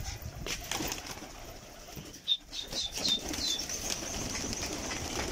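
Pigeons flapping their wings as they fly in and land on the loft roofs. About two and a half seconds in there is a quick run of short, high chirps from a small bird.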